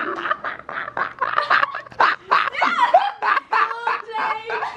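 A girl laughing in quick, repeated bursts of giggles.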